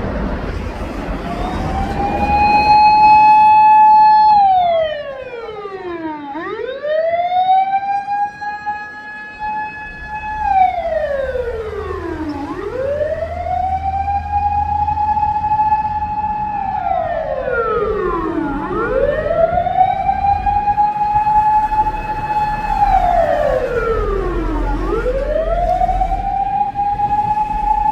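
Japanese fire engine's electronic siren wailing: a tone climbs to a held high pitch, drops steeply, and climbs again, repeating about every six seconds. The siren comes on about a second in.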